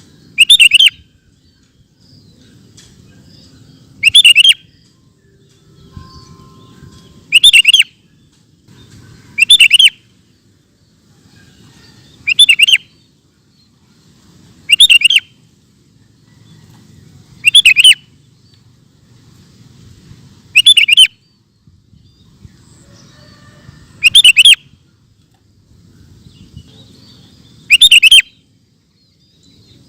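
Sooty-headed bulbul (kutilang) singing loud, short, quick song phrases, about ten of them, each around half a second long and roughly three seconds apart, over a faint low background hum.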